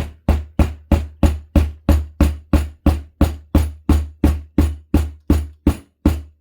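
Rubber mallet tapping the tremolo post bushings into a guitar body: a steady run of about twenty knocks, three a second.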